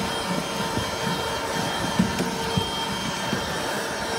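Vacuum cleaner running steadily while hoovering a car's interior: an even rushing of air under a constant motor whine, with scattered light knocks.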